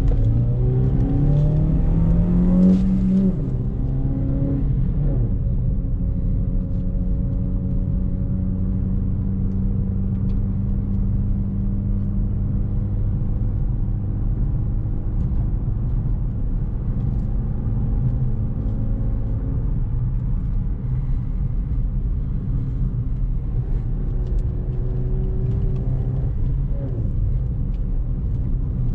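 Chevrolet Beat's engine, fitted with a K&N air filter, rising in pitch as the car accelerates for the first three seconds. The pitch drops as it changes gear, and the engine then runs steadily under light load.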